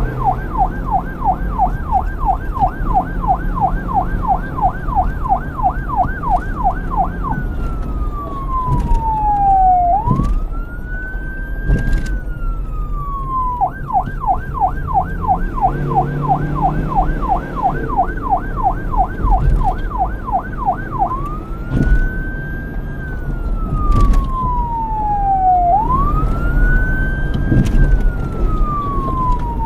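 Police siren alternating between a fast yelp, with several rapid up-and-down sweeps a second, and a slow wail that rises quickly and falls over about three seconds. The yelp runs for about the first seven seconds, then returns for about seven seconds in the middle. A low rumble sits beneath it.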